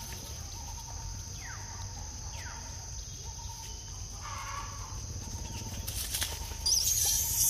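Outdoor ambience with a steady, high-pitched insect drone, a few faint short downward chirps, and a loud burst of high hissing near the end.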